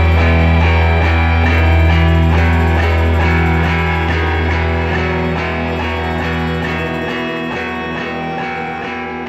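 Rock song outro: repeating plucked guitar notes over a held low bass note, which drops away about two-thirds of the way through while the whole track slowly fades.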